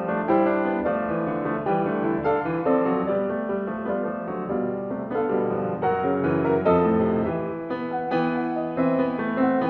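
Solo piano playing a lively, fast-moving character piece, with a quick succession of notes.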